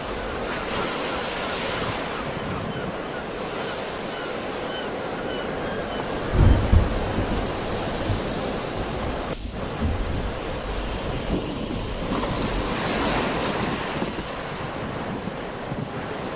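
Sea waves breaking and washing over the shore in a steady surging wash, with wind buffeting the microphone in a brief low rumble about six and a half seconds in.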